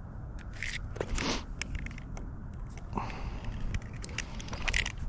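Fishing tackle being handled while a new lure is put on: scattered small clicks, scrapes and a few brief rustles, over a low steady rumble.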